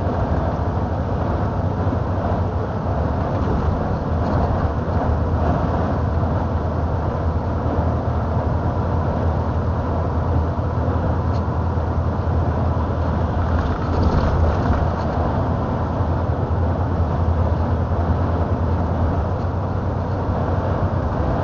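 Heavy truck on the move, heard from inside the cab: a steady low engine drone under constant road and tyre noise.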